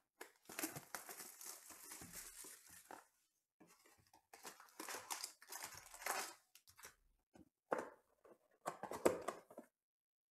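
A cardboard trading-card hobby box being torn open for the first few seconds. Then foil-wrapped card packs crinkle and rustle as they are pulled out of the box and handled, in two more short spells.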